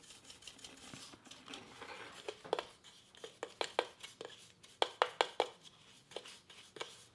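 Irregular light taps and clicks with faint scraping, as finely ground coffee stuck in a blade coffee grinder's bowl is knocked and scraped out. The taps come thickest in the middle of the stretch.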